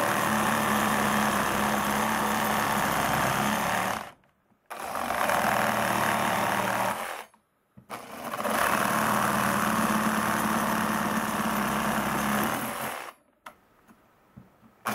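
Makita JR144DRF 14.4 V cordless reciprocating saw with a Z-saw wood blade running and cutting through a 2x4. It runs in three spells of a few seconds each with two brief pauses, stops about thirteen seconds in, and a few small clicks follow.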